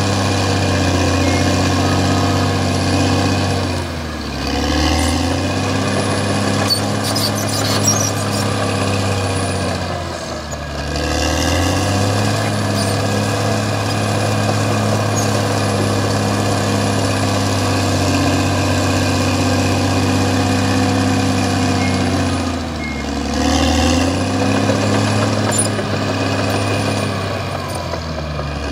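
CAT D6R XL bulldozer's diesel engine working steadily under load. The engine speed sags and picks back up several times.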